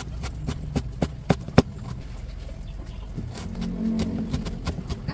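Kitchen knife slicing carrots on a cutting board: a run of uneven sharp taps, a few a second, the loudest about a second and a half in.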